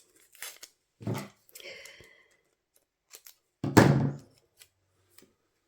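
Craft-desk handling: removable Scotch tape pulled and torn, and metal cutting dies and cardstock set down, with a few short knocks, the loudest about four seconds in.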